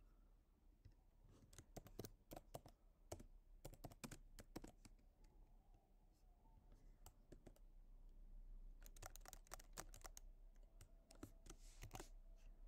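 Faint computer keyboard typing: key clicks in irregular bursts, with a pause in the middle.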